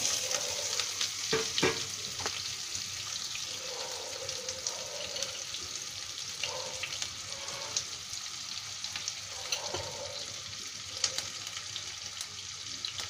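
Diced onions sizzling in hot oil with tempered cumin seeds, the tadka for a dal. The sizzle starts suddenly as the onions hit the oil, is loudest for the first couple of seconds, then settles to a steady crackling fry.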